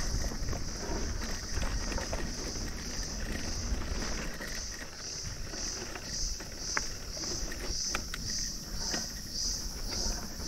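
Insects chirping in a steady pulsing drone, about two pulses a second, over the low rumble and scattered clicks of a mountain bike rolling over grass and a dirt trail.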